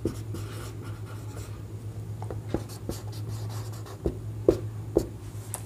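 Handwriting: a writing tip scratching and tapping on the writing surface, with several sharp taps, the loudest about four and a half and five seconds in, over a steady low hum.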